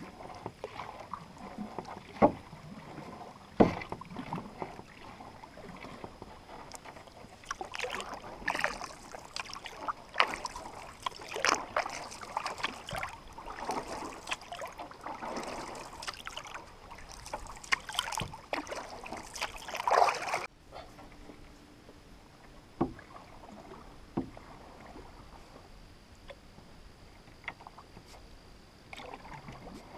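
Canoe paddling on calm river water: paddle strokes with water splashing and dripping from the blade, and two sharp knocks in the first few seconds. The splashing stops abruptly about two-thirds of the way in, leaving quieter water sounds with a few soft ticks.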